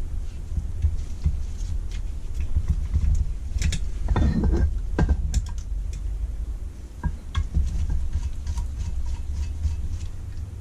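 Small clicks and knocks of tools and small metal parts being picked up and handled on a workbench, with a denser clatter about four seconds in.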